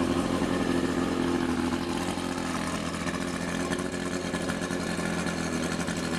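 1985 Mercury 50 hp two-stroke outboard motor running steadily at idle on flush muffs, just after starting. It took a long crank to start, which the owner thinks means the carburettor needs cleaning.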